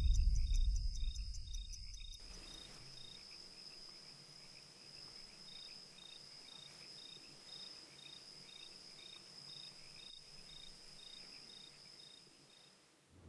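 A low rumble fades out over the first two seconds, leaving faint cricket chirping: a steady high trill with a second chirp pulsing about twice a second.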